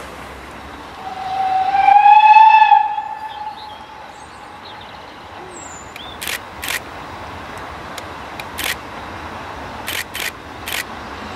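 Steam locomotive whistle: one long blast about a second in, rising slightly in pitch. It is followed by a few short, sharp hisses of steam exhaust as the engine works towards the camera.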